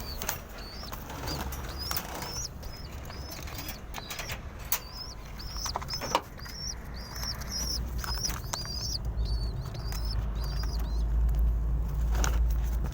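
Pigeons in a loft: a long run of short, high peeps, about two a second, with scattered sharp wing flaps and clicks. A low rumble builds in the second half.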